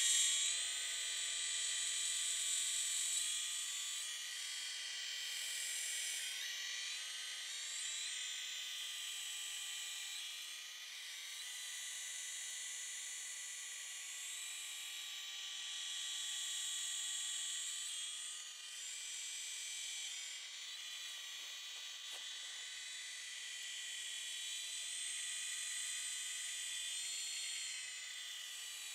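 Radio-controlled model helicopter in flight: its motor and rotor give a steady high-pitched whine of several tones. The whine is loudest at the start, then slowly swells and fades as the helicopter moves about.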